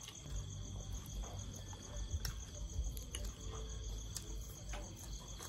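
Crickets chirping steadily in the background in a fast, even pulse, with a few faint clicks.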